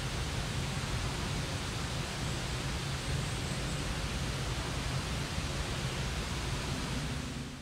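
Steady rushing noise, even from low to high, with a low hum beneath it, fading out near the end.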